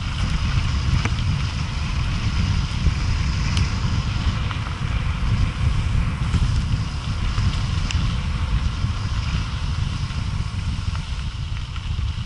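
Wind buffeting the microphone with a dense low rumble, over the hiss and crunch of mountain-bike tyres rolling on loose gravel, with a few sharp ticks of stones.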